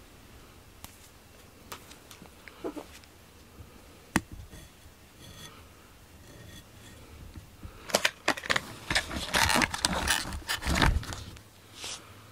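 A black cat rubbing its head and face against the camera. Fur and collar scrape and knock on the microphone, with the collar's metal name tag clinking. A few scattered clicks come first, then a dense burst of loud rubbing and scraping from about eight seconds until shortly before the end.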